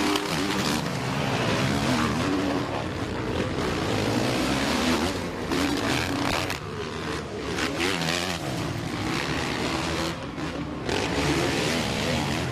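Motocross bike engines revving hard during a race, their pitch rising and falling as the riders work the throttle over the jumps.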